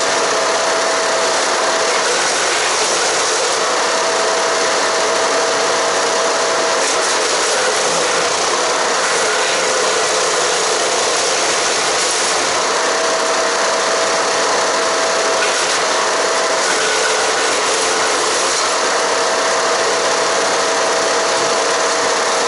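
A Haige 15 hp wood chipper running under load, grinding cedar and cypress branches into chips. It makes a loud, steady mechanical din, with a mid-pitched tone that comes and goes every few seconds.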